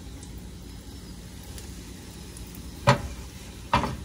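Two sharp clanks of a skillet and spatula, about a second apart near the end, as fried onions are scraped out of the pan, over a low steady hum.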